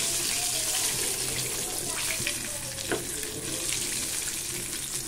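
Battered chicken deep-frying in hot oil in an iron karahi: a steady sizzling hiss.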